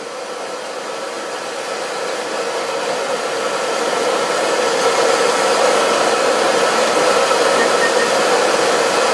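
Steady whirring, rushing noise of a running blower-type machine with a steady hum through it, growing louder over the first few seconds and then holding.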